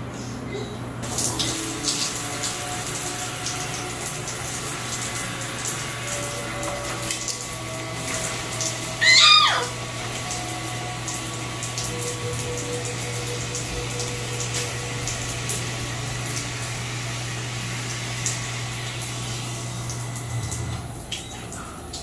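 Water running from a bathroom tap or shower, an even hiss over a steady low hum, stopping near the end. About nine seconds in, a short high-pitched sound rises and falls over it.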